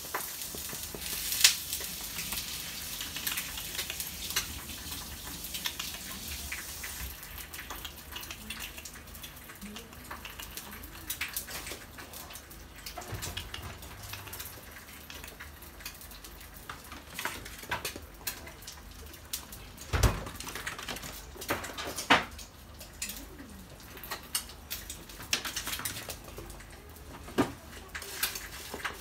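A toy poodle moving about and playing with a toy on a hard floor: scattered light clicks and taps over a faint hiss, with a few sharper knocks about a second and a half, twenty and twenty-two seconds in.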